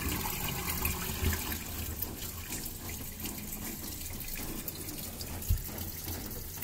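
LG washing machine's inverter drain pump running, pumping water out with a steady rush of water over a low hum. There is one short knock about five and a half seconds in.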